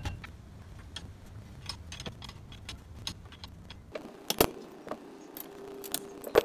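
A sharp metal knock at the start, a hammer on the clutch drum seized on the mower engine's shaft, then clinks and clatter of steel tools being handled and laid on the workbench, with louder knocks about four and a half and six and a half seconds in. A low hum runs underneath and stops about four seconds in.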